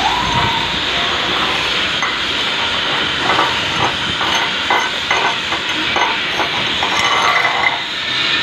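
Electric arc welding on a metal frame: a steady hissing crackle with irregular sharper pops.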